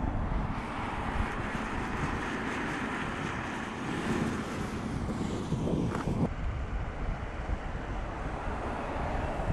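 Mercedes-Benz CLS 500 4MATIC driving by at speed: a steady rush of engine, tyre and wind noise. The sound changes abruptly about six seconds in.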